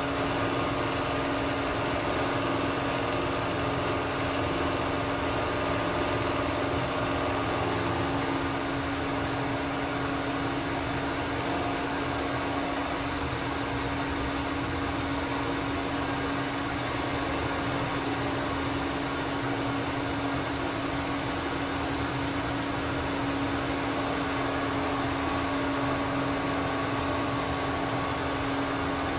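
Bridgeport vertical milling machine running steadily on its variable-frequency-drive-powered spindle motor, with a constant hum, as the end mill is fed around the metal block to cut its final shape.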